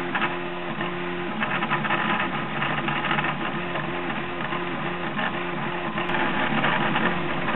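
Prusa i3 3D printer's stepper motors whining through quick print moves, their pitch stepping with each move, over a steady rattle from the y-axis: the undamped aluminium heated bed vibrating at high print speed.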